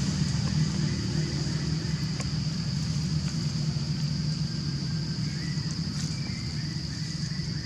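Outdoor ambience: a steady low engine-like hum under a continuous high-pitched insect drone, with a few faint ticks.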